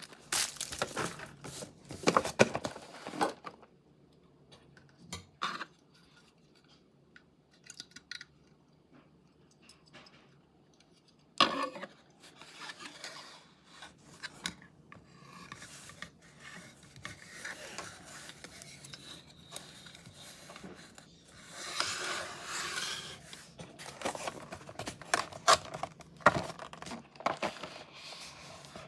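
Model airplane packaging being handled and opened: scattered clicks and knocks, with rustling, tearing and scraping that is loudest about three-quarters of the way through.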